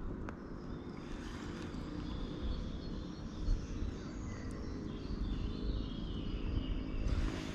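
Birds singing in the riverside trees, short high phrases coming and going, over a steady low rumble.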